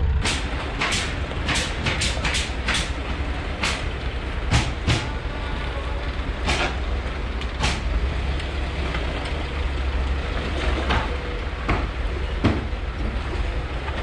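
Off-road 4x4 engine running at low revs as the vehicle creeps up wooden loading ramps into a box truck, with a dozen or so sharp knocks and clanks scattered through.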